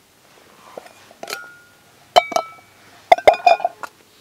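Light metal clinks and taps from a SOTO Windmaster backpacking gas stove being handled on its canister, about a dozen sharp clicks, some with a short ringing note, in two clusters near the middle and toward the end.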